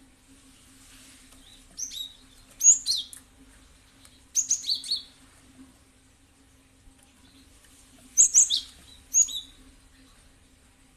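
Cinereous tit (gelatik batu) singing: bouts of short, bright chirps that sweep down in pitch, heard about two seconds in, again about four seconds in, and again about eight seconds in, with pauses between.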